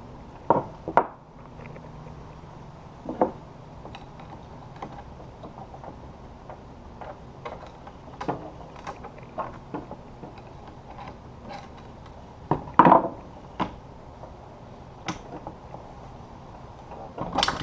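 Scattered metal clinks and knocks of hand tools and parts of a Honda manual transmission being worked on a wooden bench during teardown, with a few louder knocks, the loudest about two-thirds of the way through and another near the end.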